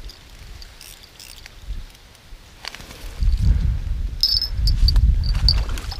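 Crickets chirping in short high pulses that start about four seconds in, over a low rumble that sets in a second earlier and is louder than the chirps.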